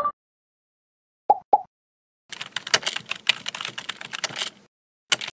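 Keyboard typing sound effect: about two seconds of rapid key clicks. Two short pops come just before it and a single click near the end.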